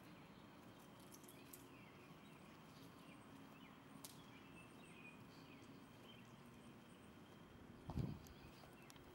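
Near silence: faint outdoor ambience with scattered faint bird chirps, and one brief low thump about eight seconds in.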